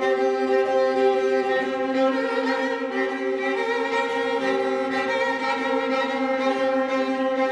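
String quartet (two violins, viola and cello) playing long held bowed notes together, with one middle note re-sounding in short swells about every second.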